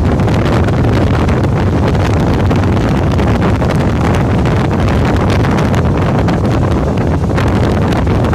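Steady wind buffeting the microphone: a loud low rumble with a hiss over it, without a break.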